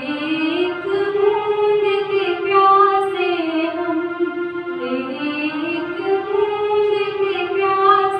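A woman singing a slow melody of long held notes to electronic keyboard accompaniment, in two phrases that each begin with a rising glide.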